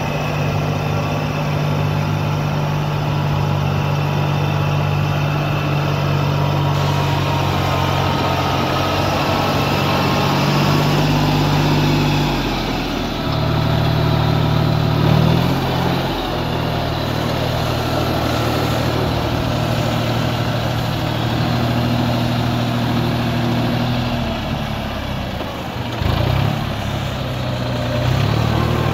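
New Holland TT45 tractor's diesel engine running steadily as the tractor works through paddy mud on cage wheels. Its engine note shifts in pitch a few times partway through and dips briefly near the end.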